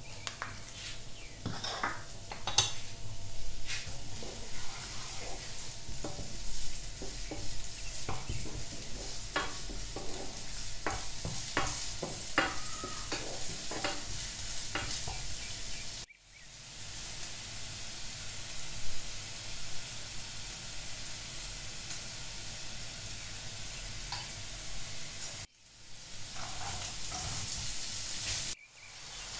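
Chopped garlic and ginger sizzling in hot oil in a non-stick frying pan, stirred with a spatula that clicks and scrapes against the pan. The sizzle breaks off abruptly a few times.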